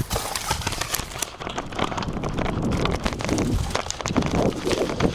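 Footsteps and rustling as a player moves on foot, an irregular run of short crunches and scuffs with wind on the microphone.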